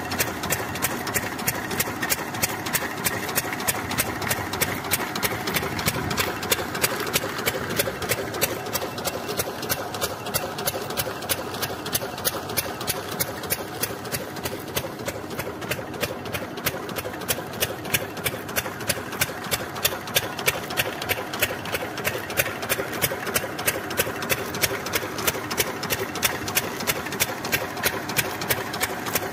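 Stationary single-cylinder diesel pump-set engine with twin flywheels running steadily under load, driving an irrigation pump. It runs with a fast, even beat that does not change in speed.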